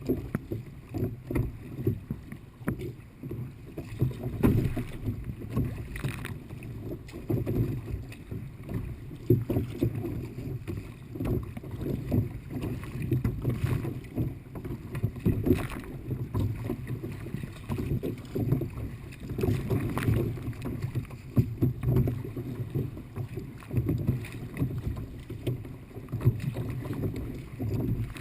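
Water sloshing and slapping against a kayak moving through light chop, with splashes from the paddle, in uneven surges that are mostly low and dull.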